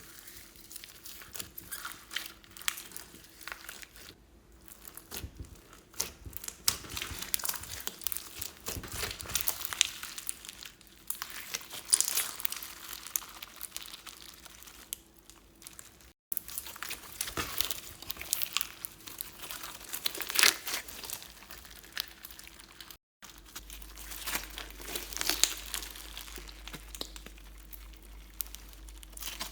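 Glossy slime being squished, stretched and kneaded by hand, with dense sticky crackling and small pops. The sound drops out for an instant twice.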